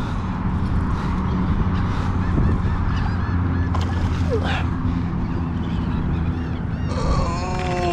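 Baitcasting reel's drag buzzing steadily as a hooked redfish runs and pulls line off against the bent rod. Near the end the tone slides sharply down in pitch.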